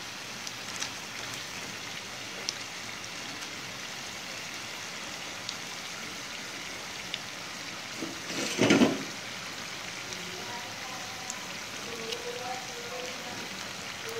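Hot oil sizzling steadily around deep-frying yam fritters, with scattered small pops and crackles. A brief louder burst of noise comes a little past halfway.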